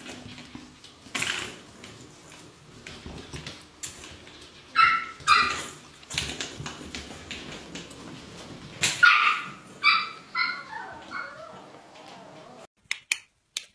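Pomeranian puppy yipping in short, high-pitched barks, loudest in pairs about five and nine seconds in, with a few falling yips after. Light clicks and knocks run between the yips.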